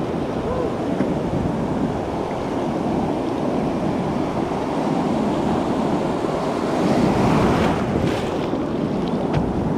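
Ocean surf and whitewater foam rushing around a kayak's bow, with wind buffeting the microphone. The wash swells louder about seven seconds in.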